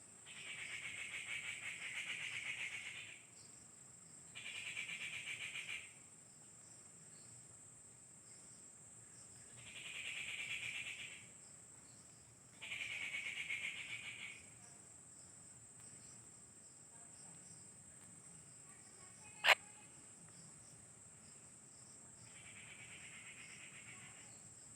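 Insects chirring: a steady high-pitched drone, broken by five buzzing, finely pulsed trills of one to three seconds each. A single sharp click sounds about nineteen and a half seconds in.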